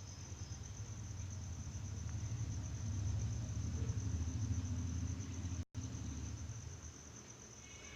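A steady, high, rapidly pulsing chirr under a low rumble that swells to its loudest midway and then fades; the sound drops out completely for an instant about three-quarters of the way through.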